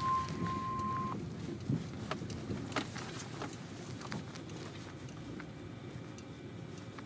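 NOAA Weather Radio's steady 1050 Hz warning alarm tone cuts off suddenly about a second in, the end of the weekly test alert. A few faint clicks and low background noise follow.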